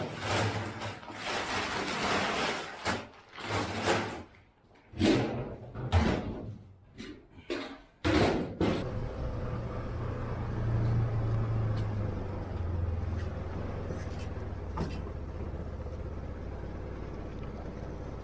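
A run of irregular knocks, bangs and scraping bursts, then about eight seconds in a steady low motor hum starts up and runs on evenly.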